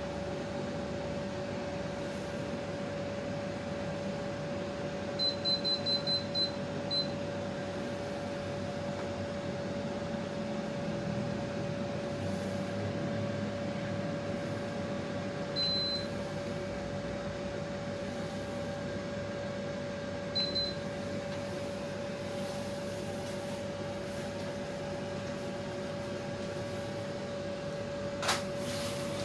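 Daikin FTV25BXV14 split air conditioner running with a steady hum and a constant tone, while its indoor unit beeps at remote commands: a quick run of about six short beeps, then single beeps and a short double beep. The beeps show the commands are received, though the uploader says the swing does not respond to the Chunghop remote. A sharp click comes near the end.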